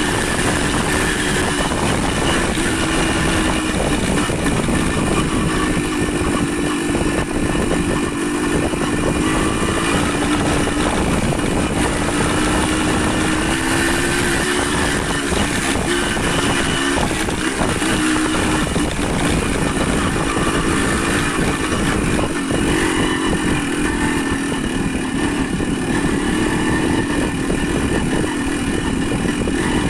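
Motorcycle engine running under way, its pitch rising and falling a little with speed, over a steady rush of wind and road noise.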